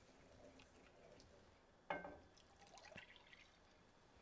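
Faint pouring and dripping of chicken stock from a glass bowl into an enamelled cast-iron pot of broccoli and vegetables. One sharp knock comes about two seconds in, and a softer click about a second later.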